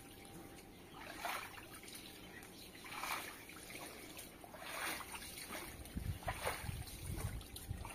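Water splashing and running across a wet stone patio floor in four separate dashes, each swelling and fading over about a second, with some low thuds near the end.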